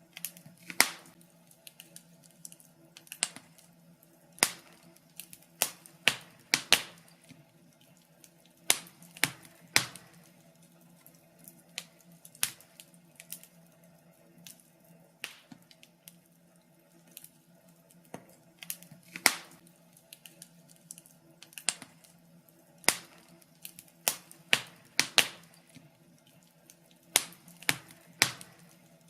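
Wood fire in a fireplace crackling, with irregular sharp pops and snaps, one or two a second, some much louder than others. Under them runs a faint steady hum.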